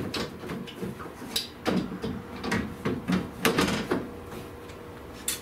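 A series of irregular knocks and clunks as car T-top trim pieces are handled and set down into place, the last one near the end.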